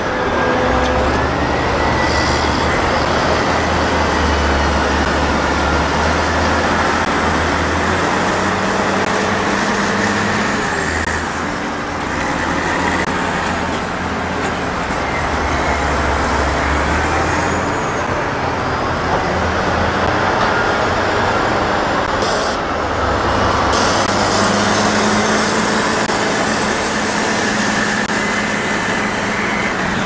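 Diesel engines of wheel tractor scrapers working hitched in push-pull pairs, a loud steady drone. The low engine note swells and eases several times as they load and haul.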